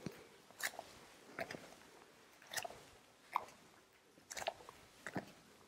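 Hands landing softly on the floor during springing kneeling push-ups: quiet short taps and scuffs, about seven in a row at roughly one a second.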